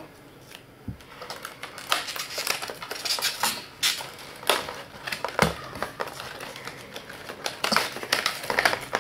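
Clear plastic blister packaging and a cardboard insert being handled: irregular crinkling, clicks and taps, with soft thumps about a second in and again about five and a half seconds in.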